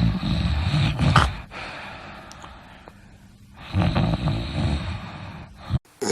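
A person snoring: two loud, rough snores, one at the start lasting about a second and a half and another beginning about four seconds in, which cuts off suddenly near the end.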